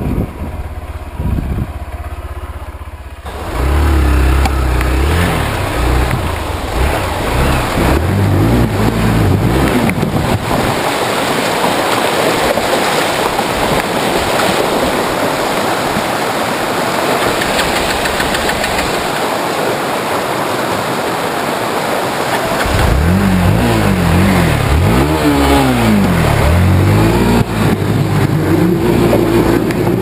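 Hero Xpulse 200's single-cylinder engine revving as the dirt bike rides a rough track. After about ten seconds comes a long stretch of rushing, splashing water as the bike wades into a rocky river. Later the engine revs up and down again while the bike struggles through the riverbed.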